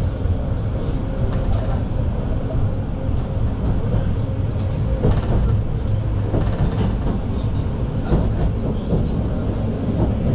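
Vityaz-M low-floor tram running along the line, heard from inside the passenger cabin: a steady low rumble of wheels on rail with scattered knocks.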